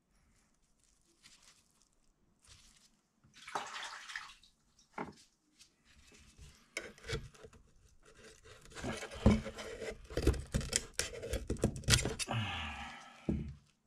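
Scraper working a cured resin print off a resin 3D printer's build plate over a plastic tub. After a quiet start and a couple of brief rubbing sounds, a rapid run of scrapes, clicks and knocks fills the second half.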